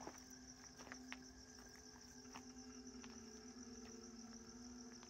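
Faint, steady chirring of crickets at night, with a few soft clicks like footsteps on gravel.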